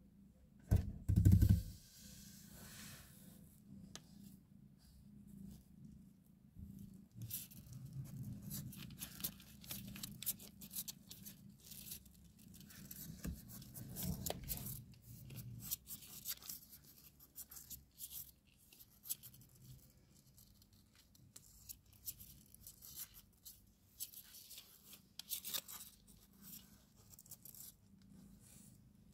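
Irregular scratching and rustling against a cardboard box as nursing newborn kittens and their mother shift about, with one loud knock about a second in.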